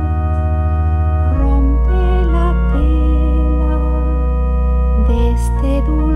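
Organ playing sustained chords over a deep bass line that moves to a new note every second or two, with no voice.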